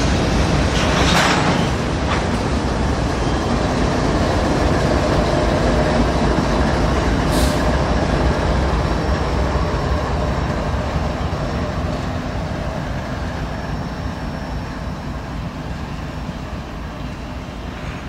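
Norfolk Southern freight train's last covered hoppers rolling by, wheels rumbling on the rail, followed by the rear ES44AC locomotive pushing as distributed power. The sound grows fainter through the second half as the train moves away.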